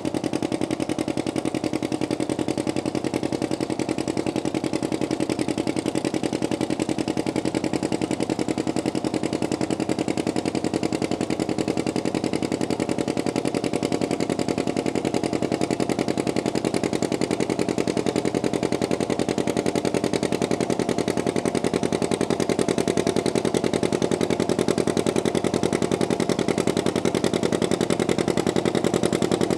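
Antique John Deere pulling tractor's engine idling steadily while hitched to the pulling sled, growing a little louder near the end.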